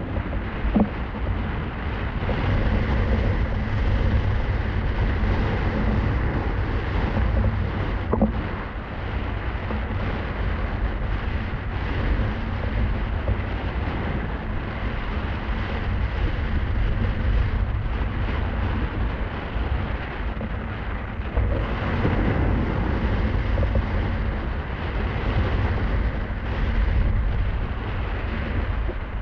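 Wind buffeting a microphone carried at speed, a steady deep rumble with a hiss over it. There is a short knock about eight seconds in.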